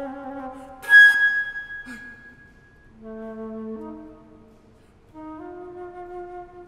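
Solo flute playing contemporary music: a wavering low note, then a sharp, loud accented high note about a second in, followed after a short pause by separate long held low notes.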